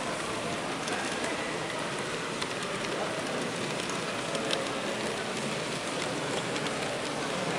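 Steady rushing background noise of a large exhibition hall, with scattered faint clicks.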